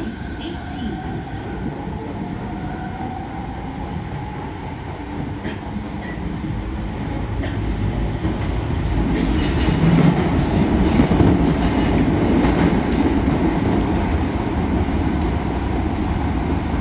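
Osaka Metro Sakaisuji Line subway train running through a tunnel, heard from inside the front car. The running rumble grows louder as the train gathers speed. A faint rising whine sounds in the first few seconds and a couple of sharp clicks come midway.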